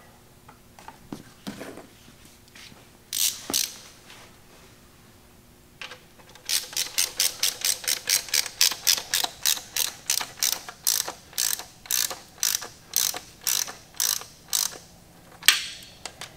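Hand ratchet clicking as it runs down the connecting-rod cap bolts to make them snug: two single clicks about three seconds in, then steady back-and-forth ratcheting at about three clicks a second from about six seconds in, with one louder clack near the end.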